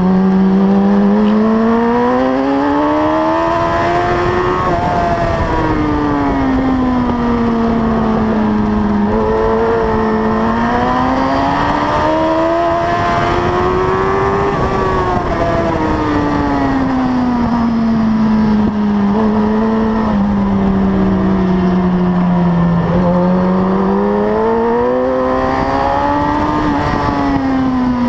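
Suzuki 1000 cc superbike engine at racing speed from onboard, its note gliding up over a few seconds and back down over several more, three times, as the bike accelerates and slows through corners.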